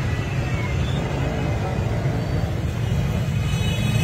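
Steady low rumble of street and traffic noise.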